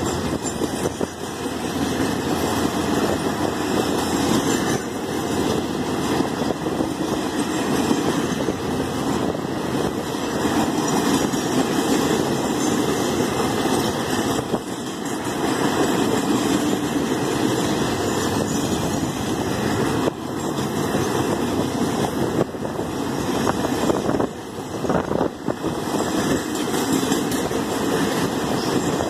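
Empty freight flat wagons rolling past: a steady rumble and clatter of steel wheels on the rails, with a couple of brief dips in level.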